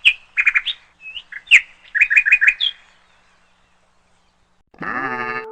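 A bird chirping in quick series of short, sharp calls, some in fast runs of three or four, for about three seconds, then a pause. Near the end a loud, steady pitched sound with a wavering edge starts abruptly.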